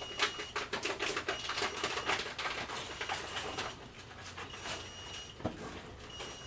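Grocery store bottle return machine clattering as containers are taken in: rapid rattling and clicks for the first few seconds, then quieter, with a single knock about five and a half seconds in. A faint high tone comes and goes throughout.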